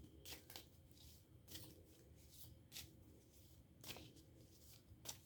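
Faint handling of a deck of oracle cards: a few soft snaps and rustles, spaced about a second apart.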